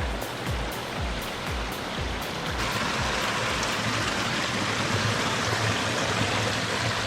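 Mountain stream cascading down rocks in small waterfalls: a steady rush of water that gets louder and brighter about two and a half seconds in.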